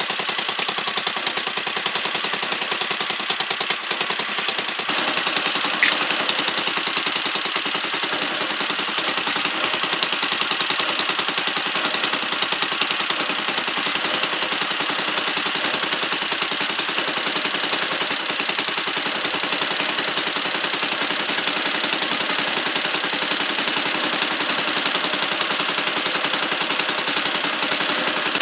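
Small engine running steadily with a rapid, even popping from its exhaust.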